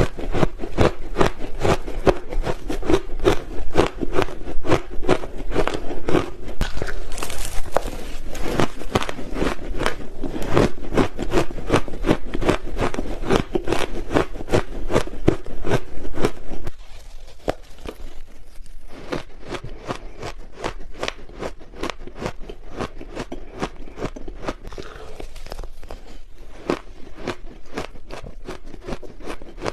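Fine blender-crushed ice being bitten and crunched in the mouth: a dense, continuous run of crisp crackles. A little past halfway the crunching drops to a softer, quieter level.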